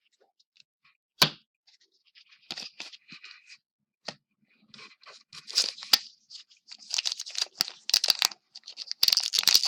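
A 2016-17 Fleer Showcase hockey card pack is torn open and its wrapper crinkles as the cards are handled. There is a sharp click about a second in, and the rustling grows thicker and louder in the second half.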